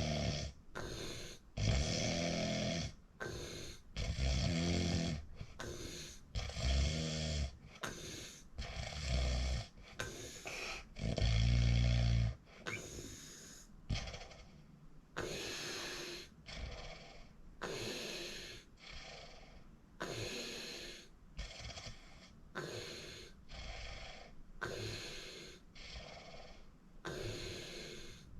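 A person snoring in their sleep, with a breath sound about once a second. For the first twelve seconds or so several snores carry a deep low rumble and are the loudest; after that the breaths turn lighter and breathier.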